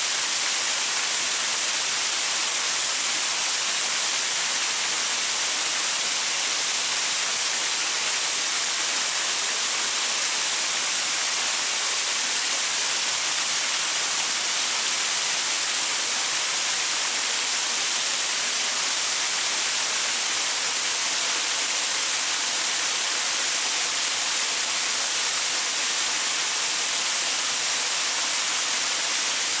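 Small waterfall splashing over rocks: a steady, even hiss of falling water with no change.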